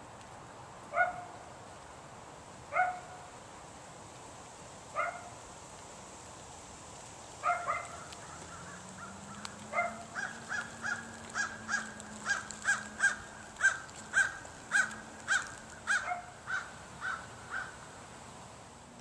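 Crows cawing. A few single caws come about two seconds apart, then a quick run of caws, two or three a second, in the second half.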